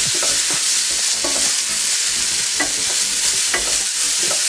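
Chopped tomato, onion and spices sizzling in coconut oil in a nonstick frying pan while a wooden spatula stirs and scrapes them, with a scrape about once a second. The tomato is being sautéed until it softens.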